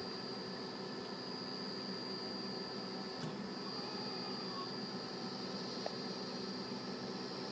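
Silver-paste dispensing robot running as its nozzle head traces the grid line: a steady machine hum with a thin high whine over it. There are two faint clicks, one about three seconds in and one near six.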